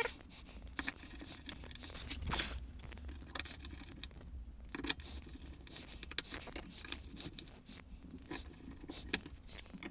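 Hands handling workshop parts: scattered light clicks, taps and scrapes, with one louder knock about two and a half seconds in, over a faint low hum.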